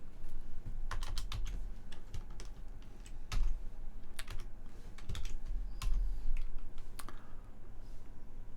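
Typing on a computer keyboard: irregular key clicks while a line of CNC program code is entered.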